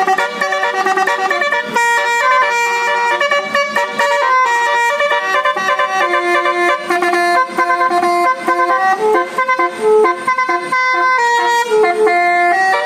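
A bus's Basuri telolet horn, a set of electric multi-tone horns, playing a tune. Several horn tones sound together and step from note to note, with short breaks between phrases.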